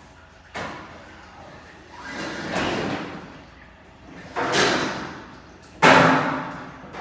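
Four separate sudden bangs, each dying away over about a second, the last near the end the loudest.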